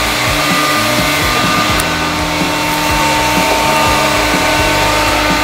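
Electrolux Ergorapido ZB3423B cordless stick vacuum running steadily as it is pushed over a wooden floor, a constant motor whine over a hiss of rushing air, with background music under it.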